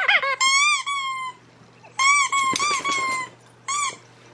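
Dog's squeaky toy squeaking repeatedly: a long wavering squeak about half a second in, a run of squeaks around two to three seconds, and a short one near the end.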